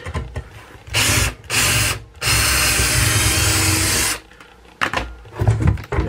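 Cordless drill backing out a stubborn, rusted drywall screw. It runs in three bursts: two short ones about a second in, then a longer run of about two seconds. A few light knocks follow near the end.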